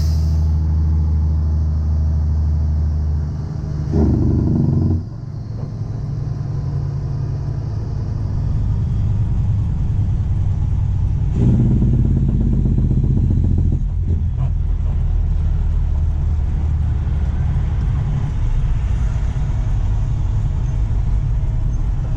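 Tow truck engine running as the truck drives up, a steady low drone whose note changes briefly about four seconds in and again for a couple of seconds near the middle.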